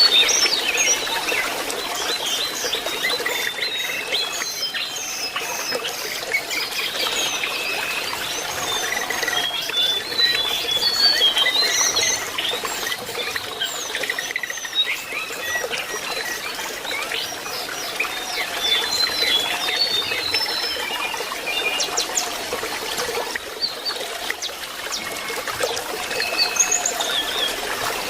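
Lesser shortwing (jongkangan) singing: a long, dense run of quick, high whistled notes and twitters that rise and fall, over the steady trickle of running water.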